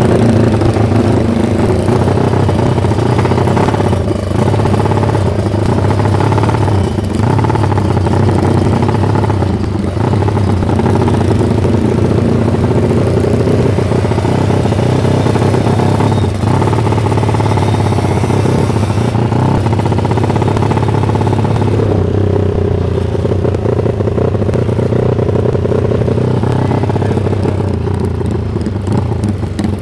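Motorcycle engine running steadily at cruising speed over a constant rushing noise.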